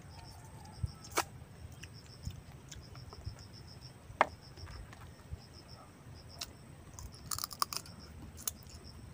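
Land crab being eaten by hand: sharp cracks and clicks of shell breaking, one about a second in, a louder one around four seconds in, and a quick cluster near the end.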